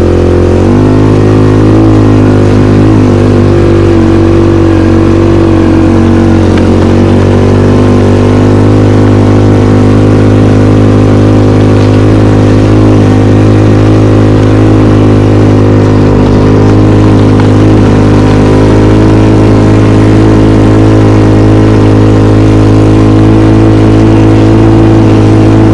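IRBIS SF snowmobile engine running under way as it is ridden along a packed snowy track. It climbs in pitch over the first second, then holds a steady, even speed.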